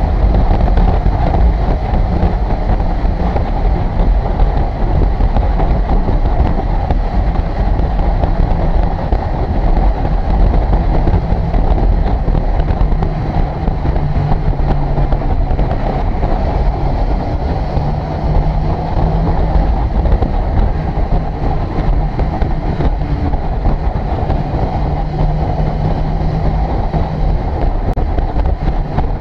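Suzuki GSX-R600 K7 inline-four engine running at road speed under wind and road rumble inside a road tunnel, its note shifting up and down slightly several times with the throttle.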